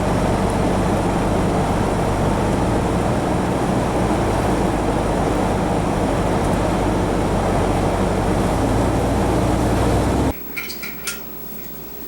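Steady engine and road noise inside a moving pickup truck's cab, with a low hum under it. It stops abruptly about ten seconds in, leaving a quiet background with a few faint clicks.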